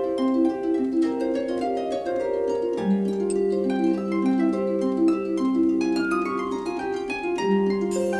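Instrumental music: a steady run of quick plucked-string notes, with a low note held underneath from about three seconds in.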